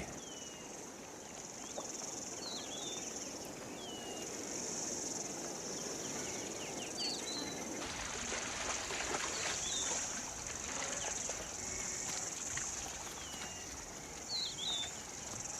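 Outdoor ambience of a steady, high insect drone like crickets or cicadas, with short high chirps sounding now and then, several times over the stretch.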